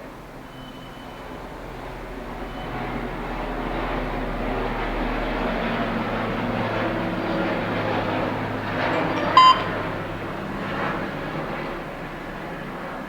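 One short electronic key-press beep from a home alarm panel's keypad about nine seconds in. Under it is a broad rumble that builds over the first few seconds and eases off near the end.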